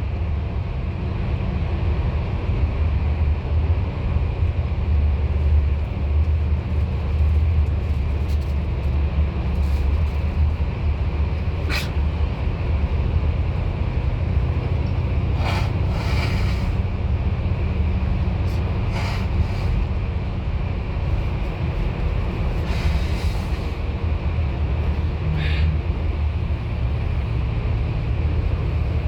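Bus engine and road noise heard from inside the passenger cabin: a steady low rumble, with a few short faint rattles now and then.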